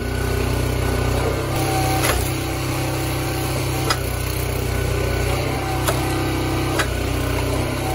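Small gasoline engine of a vertical hydraulic log splitter running steadily, with a few sharp cracks and knocks at uneven times as logs are split and handled on the table.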